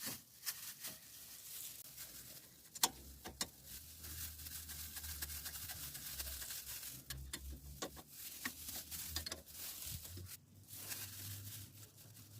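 Faint, scattered clicks and light knocks of hand work on the brake assembly, the sharpest about three seconds in, over a low steady hum.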